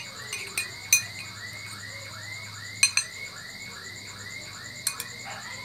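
Metal spoon clinking against a ceramic bowl a few times while stirring seasoned potato cubes, with the sharpest clinks about a second and about three seconds in. Behind it, a steady rhythmic chirping of about three calls a second runs on, over a low hum.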